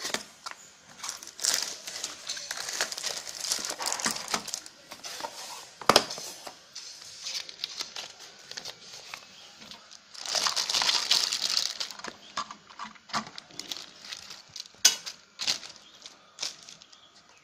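Packaging of a carbon monoxide alarm being handled and opened: irregular crinkling and rustling with scattered clicks. There is a sharp knock about six seconds in, and a longer spell of dense crinkling a few seconds later.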